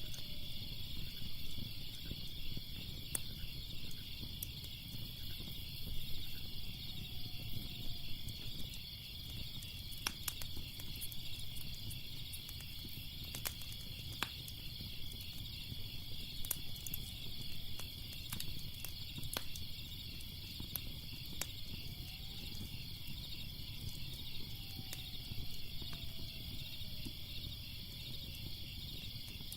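Crickets chirping steadily, with scattered sharp crackles and pops from a fire over a low rumble. A few faint, slow sliding tones drift in and out.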